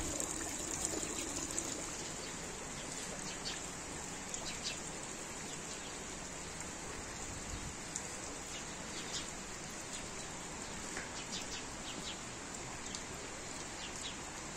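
Steady trickling of a shallow stream running over stones, with short bird chirps now and then.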